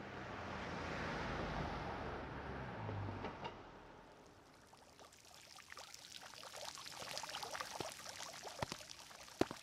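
Sound-effect ambience of running water. A rush of noise swells over the first two seconds and fades by about four seconds in, followed by scattered clicks and drips that grow busier toward the end.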